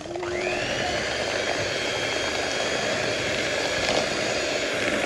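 Electric hand mixer running steadily, its beaters whisking cupcake batter of creamed butter, sugar, egg and milk in a bowl.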